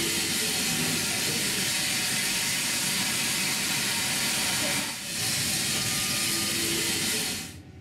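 Loud, steady high hiss of escaping steam, with a brief dip about five seconds in, cutting off abruptly shortly before the end.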